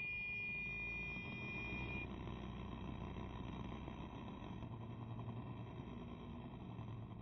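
Motorcycle riding along, with low, steady engine and road noise. A steady high electronic tone with overtones sounds over it and stops abruptly about two seconds in.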